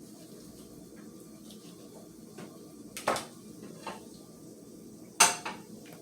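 Kitchen knife and dishes clinking and knocking while raw chicken is cut into small pieces: a couple of sharp knocks about three seconds in, then a louder pair about five seconds in.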